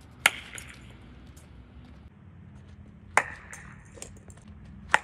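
Sharp cracks of a cricket bat striking the ball, three in all: just after the start, a little past three seconds in, and just before the end, the first two loudest.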